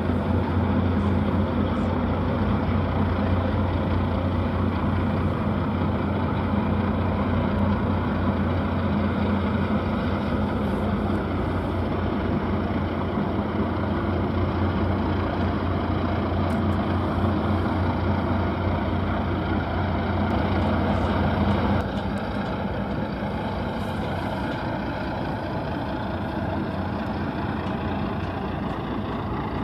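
Low, steady drone of a large RORO cargo ship's engines as it passes close by. The deepest part of the hum cuts out suddenly about two-thirds of the way through, leaving a lighter, steady rumble.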